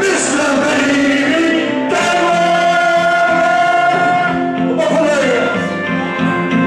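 A man singing into a microphone over backing music, holding one long note about two seconds in, then sliding down in pitch around five seconds.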